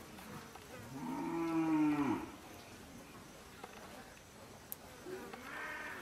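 A cow mooing: one long call about a second in, and another starting near the end.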